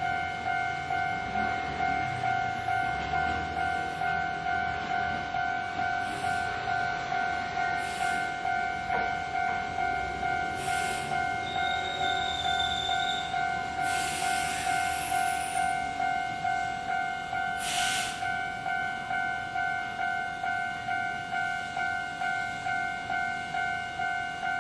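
Japanese level-crossing warning bell ringing steadily in a rapid two-tone clang, about two rings a second. A train rumbles low in the first few seconds, and several short hissing bursts come between about six and eighteen seconds in.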